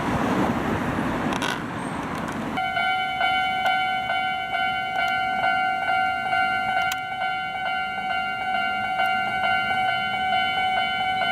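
Road traffic noise, then a railway level-crossing alarm starts abruptly about two and a half seconds in: a steady electronic bell tone pulsing about twice a second, warning that a train is approaching.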